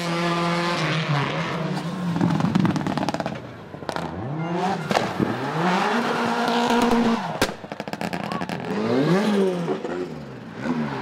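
Rally car engine revved hard, its pitch climbing and dropping again and again as the car accelerates, changes gear and lifts off the throttle, with a single sharp crack about seven seconds in.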